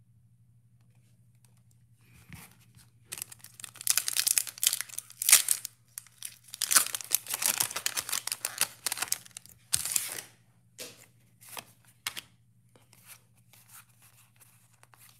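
Foil Pokémon booster pack wrapper torn open by hand, crinkling and tearing in bursts for several seconds, starting about three seconds in. Lighter, scattered clicks follow near the end as the cards are handled.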